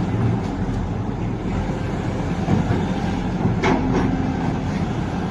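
Hydraulic excavator's diesel engine running steadily under load, with a single sharp clank about two thirds of the way in.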